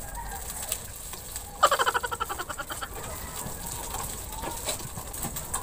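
Fish frying in oil in a small pan, with a faint crackle throughout. About one and a half seconds in, a short pitched animal call lasts under a second.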